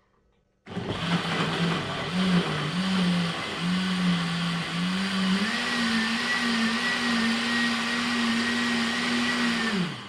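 Countertop blender motor starting up and running loud as it blends chopped orange, kiwi fruit and ginger into a carrot and apple smoothie. Its pitch wavers at first, then settles higher and steadier with a thin whine about halfway through, and the motor cuts off just before the end.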